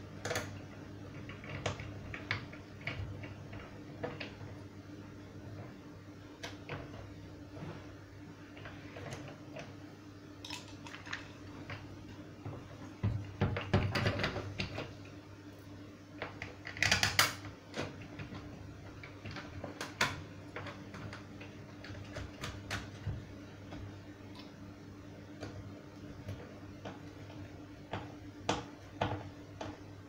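Scattered clicks and knocks of hard plastic as the grey plastic motor head of a Morgan 3-in-1 vacuum cleaner is handled and turned over, with two louder bursts of rattling about halfway through. A steady low hum runs underneath.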